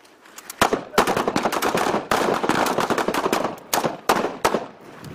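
M16 rifle fire: sharp shots begin about half a second in and pile up into a dense, overlapping string of rapid shots for about three seconds. A few separate shots follow near the end.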